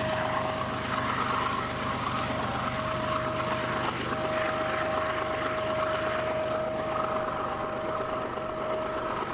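Freight train's trailing diesel locomotives and cars running away along the track: a steady rumble with a thin steady whine through it that drops out briefly about four seconds in.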